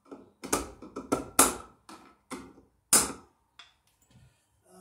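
Hammer driving nails into a wooden wall stud to mount an electrical outlet box: about eight sharp blows at uneven intervals, the heaviest in the first three seconds.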